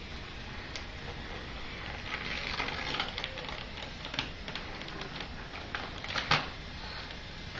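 Gift-wrapping paper crinkling and tearing in small irregular rips as a small child pulls it off a box, with a sharp snap about six seconds in.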